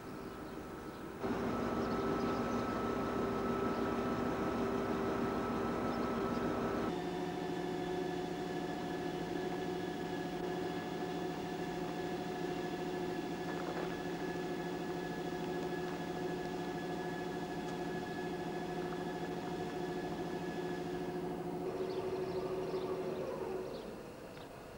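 Diesel-electric locomotive engines idling: a steady drone with several held humming tones. The sound changes abruptly about a second in and again about seven seconds in. Near the end the tones fall in pitch and the sound gets quieter.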